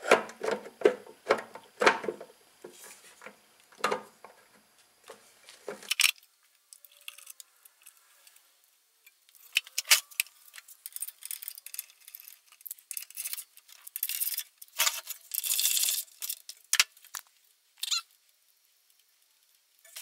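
Metal engine parts and fasteners being handled on a wooden workbench: irregular clinks and knocks, a pause, then more clinking with a brief scraping rush near three quarters of the way through.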